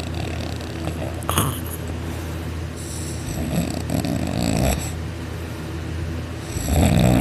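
A man snoring heavily in deep sleep on his back with his mouth open, his soft palate vibrating. There is a long snore about three and a half seconds in and a louder one near the end. A short sharp sound comes about a second in.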